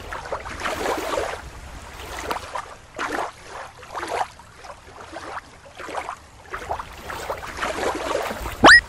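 Water lapping and sloshing in irregular surges. Near the end, a short, loud sound rises steeply in pitch.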